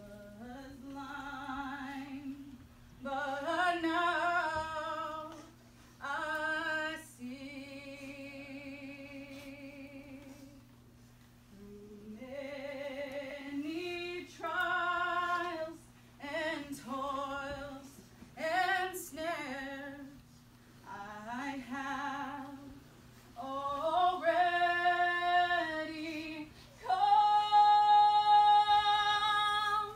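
A woman singing solo, a slow song in separate sung phrases with vibrato, ending on a long held note near the end.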